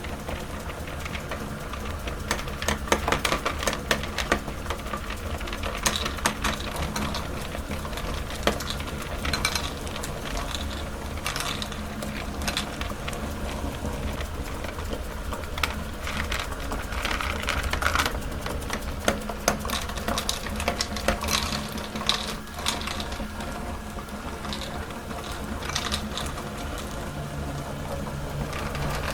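Electric meat grinder motor running steadily while it grinds chocolate cubes, with irregular crunching and crackling as the chocolate is crushed.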